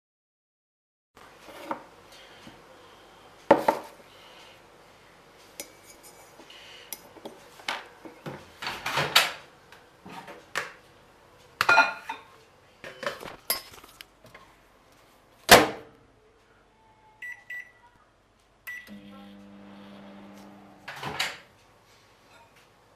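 Irregular knocks and clatter of kitchen things being handled and set down on a countertop. About two-thirds of the way in there are a few short high tones, followed by a steady low hum for about two seconds.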